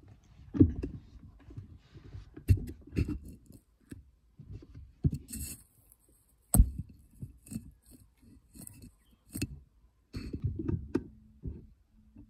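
Handling noise of a rifle-mounted scope camera being adjusted and repositioned: irregular bumps, knocks and rubbing, with short scrapes and a sharp click about six and a half seconds in. A faint steady hum comes in near the end.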